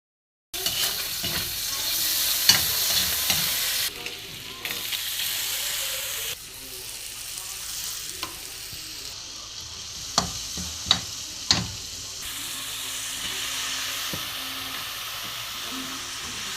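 Chopsuey sizzling as it is stir-fried in a pan, with a steady frying hiss. A spatula knocks and scrapes against the pan now and then, three times in quick succession past the middle.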